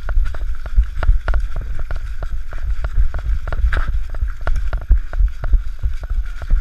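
Rapid, irregular knocks and thumps over a heavy low rumble of wind on the microphone.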